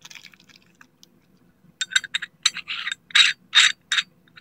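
Survival knife and its small kit being handled: a quick run of sharp metallic clinks and short scrapes, the loudest two a little after three seconds in.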